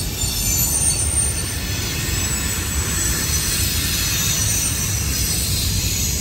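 Freight train's tank cars and covered hopper cars rolling past: a steady low rumble of steel wheels on rail, with a thin, high-pitched wheel squeal over it that grows louder midway.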